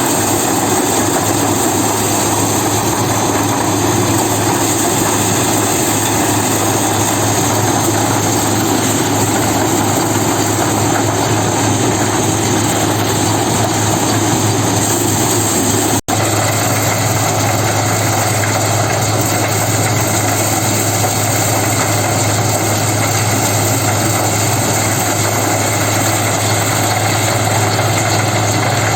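A farm machine's engine running steadily at one speed, with a strong steady hum. The sound cuts out for an instant about halfway through.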